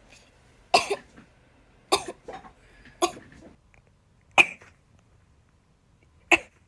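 A woman sneezing five times, each a short, sharp burst, spaced a second or two apart.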